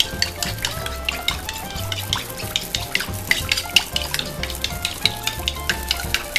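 Metal spoon beating egg yolk and milk in a ceramic bowl, a quick run of clinks and scrapes against the bowl. Soft background music with a pulsing bass plays underneath.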